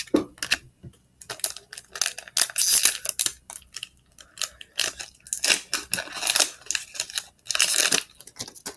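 Foil wrapper of a soccer trading-card pack crinkling and tearing in irregular bursts as it is handled and ripped open.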